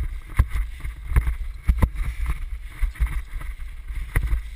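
Low rumble and irregular clattering of a dryland dog-sled rig rolling over a rough dirt trail, with wind buffeting a helmet-mounted microphone.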